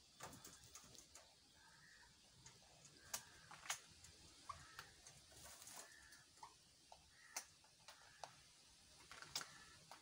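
Faint, scattered sharp clicks and taps of a parakeet moving about a wire-mesh cage, with a few louder clicks over quiet room tone.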